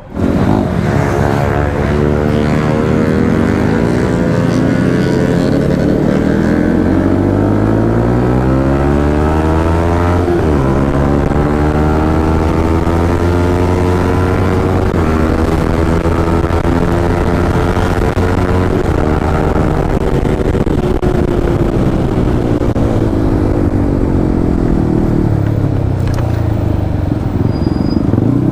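Yamaha MT-15's single-cylinder engine pulling hard under a rider, the revs climbing and dropping sharply at two gear changes, then holding steady before easing off and picking up again near the end.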